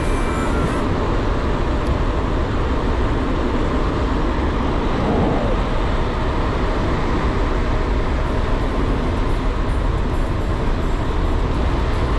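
Steady wind noise buffeting the microphone of a handlebar-mounted camera on a bicycle riding fast along an asphalt road.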